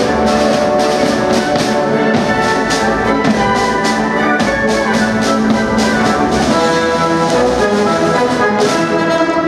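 Marching snare drums played in a steady rhythm over loud brass-led orchestral music.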